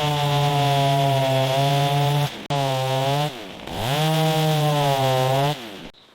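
Chainsaw engine running at high revs in two long stretches. Its pitch drops as the throttle is let off about two and a half seconds in, climbs back up about a second later, and falls away near the end.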